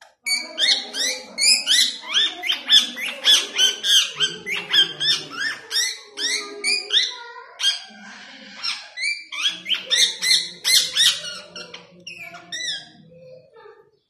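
Ring-necked parakeet giving a rapid string of short, shrill calls, about three a second, in two bouts with a brief lull about eight seconds in.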